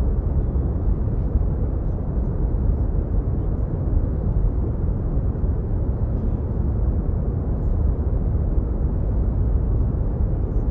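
Steady, deep rumbling noise with no tone, beat or rhythm, the low-heavy hiss of brown noise, used as the soundtrack for the dance piece.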